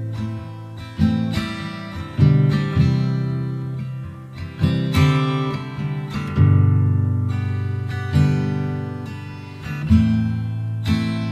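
Instrumental opening of a blues-rock song: an acoustic guitar strikes chords and lets each ring out and fade, a new chord every second or two.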